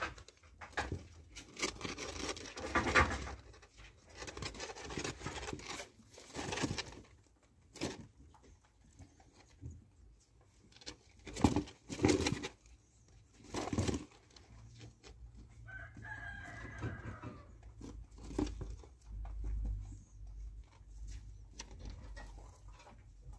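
Animal calls: several short pitched bursts in the first few seconds, louder short sounds near the middle, and a wavering higher call about two-thirds of the way through.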